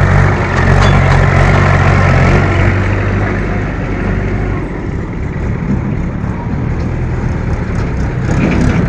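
Heavy diesel machinery engine running close by, its steady low note fading into rougher, uneven noise about three seconds in.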